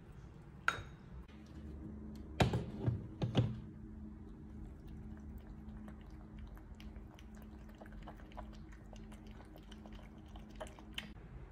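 A spoon clinks once against a metal can of wet cat food, followed by a few dull knocks. Then a cat eats wet food from a bowl, making a long run of soft smacks and small clicks.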